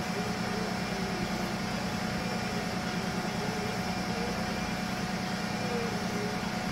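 Sony TC-252D reel-to-reel tape deck running in playback: a steady hum from its transport, with the tape's music coming through faint and quiet beneath it.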